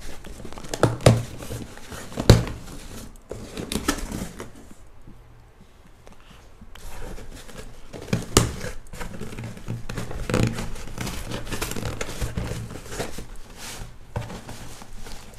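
Packaging being handled during an unboxing: crinkling plastic and cardboard, with a few sharp knocks and taps as the box and its contents are moved about. There is a quieter pause midway.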